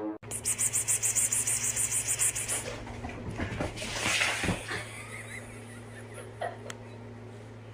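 A person making a rapid whispered 'pspspsps' call to summon a cat, a fast string of hissing puffs for about two and a half seconds. A few soft knocks follow, over a low steady hum.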